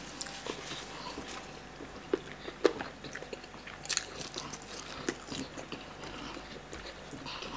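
Two men eating chicken with their hands: chewing and wet mouth clicks, with scattered sharp snaps as the meat is torn and bitten, the loudest a couple of seconds in.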